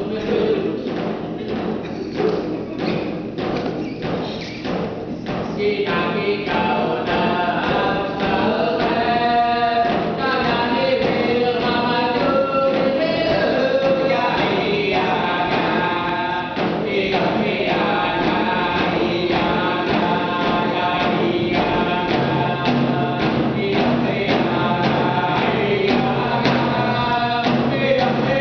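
Hand drum struck in a steady beat, joined about five seconds in by a group of voices singing a drum song for the dancers.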